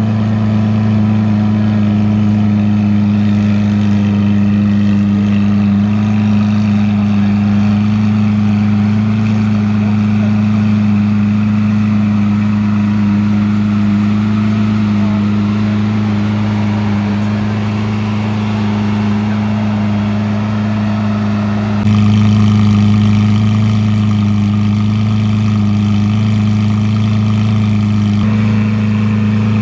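Lamborghini Aventador S's naturally aspirated 6.5-litre V12 idling with a steady, unchanging low note. About three-quarters of the way through it gets slightly louder and fuller.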